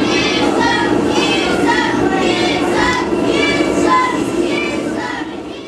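Crowd of spectators, many of them children, yelling and cheering in high, overlapping voices, fading out near the end.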